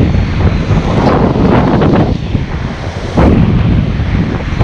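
Strong wind buffeting the camera's microphone in uneven gusts, with surf breaking on the beach behind it.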